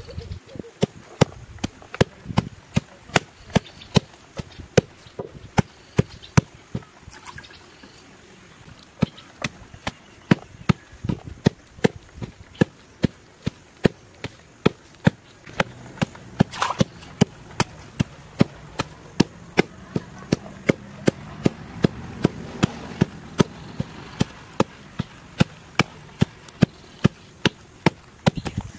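Steady series of sharp knocks, about two a second, with a brief pause around eight seconds in.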